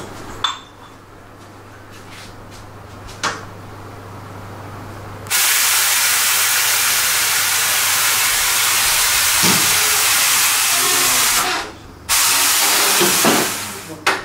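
Compressed-air blow gun hissing loudly in a long blast of about six seconds, then a shorter blast after a brief pause. A couple of metallic tool clinks come before it.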